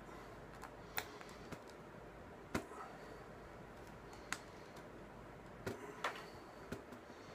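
A handful of sharp, light clicks and taps as the plastic laptop and small hardware are handled during screen reassembly.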